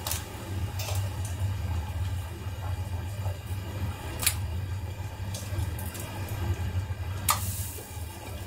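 Raw blue swimming crabs laid into a steel wok of lobsters, their shells giving a few sharp clicks and knocks, about four in all, over a steady low rumble.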